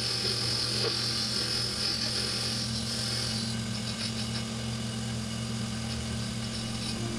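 Mini metal lathe running with the spindle and chuck turning and no cut being made: a steady motor hum with a high whine that weakens about halfway through.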